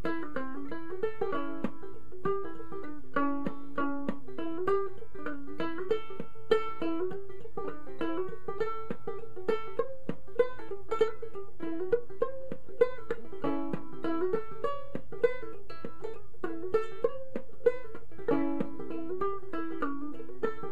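Tenor gourd banjo ukulele, in standard uke tuning with a wound C string, played clawhammer style: an old-time fiddle tune in the key of A as a steady, even run of sharp plucked notes.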